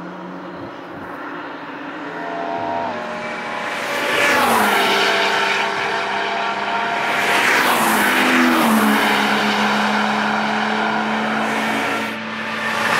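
Peugeot 406 Coupé V6 engine running hard as the car drives past on a race track. Its pitch drops sharply as it sweeps past about four seconds in, steps down again about eight seconds in, then holds steady.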